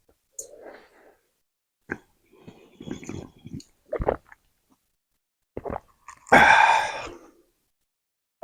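Close-up eating sounds of spicy noodles: chewing, mouth clicks and slurping. About six seconds in comes a loud, pitched vocal outburst lasting nearly a second.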